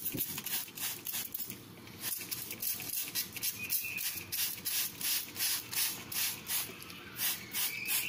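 Many quick squirts of water from a hand spray bottle onto a coarse whetstone, about two or three short hissing sprays a second, washing the grinding mud across the stone.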